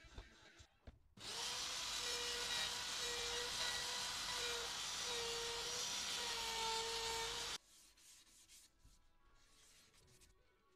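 Handheld wood router running and cutting along the edge of a wooden board, a steady high whine that starts abruptly about a second in and cuts off suddenly after about six seconds. Faint handling sounds follow.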